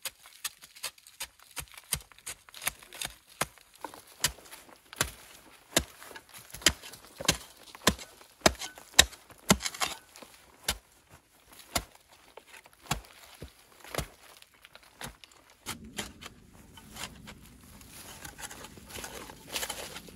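A mattock chopping into a bank of packed earth and clay in steady strikes, a bit under two a second. About sixteen seconds in, the strikes give way to scraping and loose soil falling as the dirt is cleared out.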